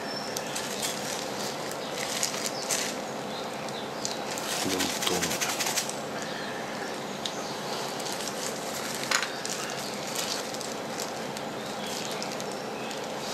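Thin disposable plastic gloves rustling and crinkling as hands dig and crumble damp fermented beetle substrate (flake soil) in a plastic tray, with scattered light scrapes and clicks from a small plastic spoon.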